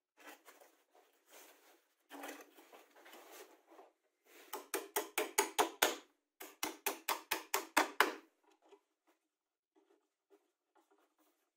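Hammer driving a nail into a wooden block: two quick runs of sharp, evenly spaced blows, about five or six a second, beginning about four seconds in and stopping after about four seconds. Before them come soft scraping and rustling sounds, and afterwards a few faint clicks.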